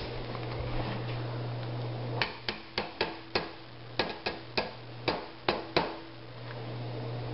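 A frying pan being knocked to tip scrambled eggs out onto a plate: about ten sharp knocks, irregularly spaced over some three and a half seconds, starting about two seconds in, over a steady low hum.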